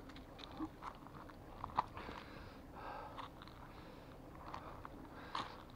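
Dry leaves and loose stones crunching underfoot in irregular, quiet steps, with a couple of sharper crunches about two seconds in and near the end.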